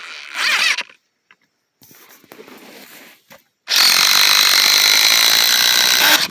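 DeWalt cordless impact driver with a brief spin-up of the motor about half a second in, then hammering steadily and loudly for about two and a half seconds as it drives a lag bolt, cutting off just before the end. It is still running after being fully submerged underwater.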